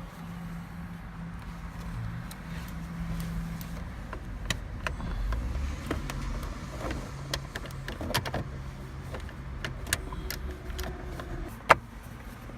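Plastic steering column trim covers being handled and fitted back around the column: scattered sharp plastic clicks and rubbing, the loudest a single sharp snap near the end, over a steady low hum.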